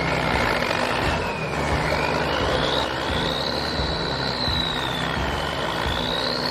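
Heavy machine engine running steadily, with a high whine that slowly rises and falls.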